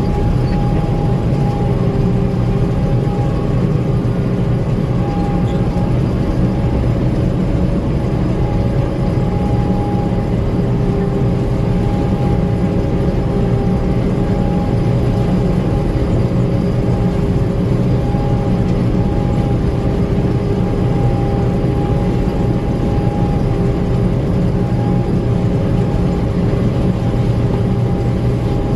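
Gleaner M2 combine running steadily: a constant engine and machinery drone with a steady whine on top.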